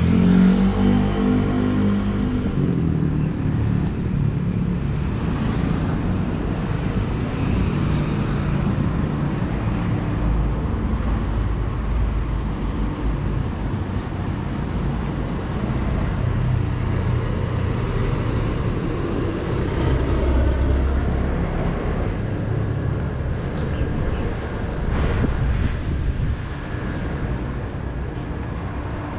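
Street traffic: cars driving past with a steady low engine and road rumble, swelling as vehicles come close.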